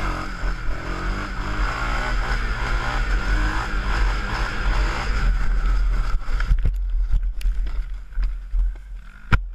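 Yamaha Raptor sport quad's single-cylinder engine running hard at speed, with wind buffeting the helmet-mounted microphone. In the last few seconds the engine note falls away and a few sharp knocks sound as the quad crashes, the loudest near the end.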